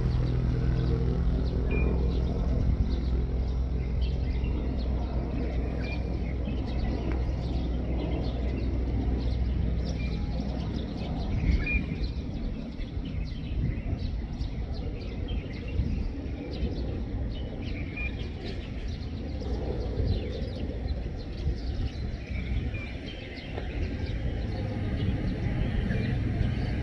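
Distant drone of a large propeller-driven military transport plane passing overhead. It is a steady low hum for the first half and becomes a looser rumble after about eleven seconds. A bird chirps every few seconds over it.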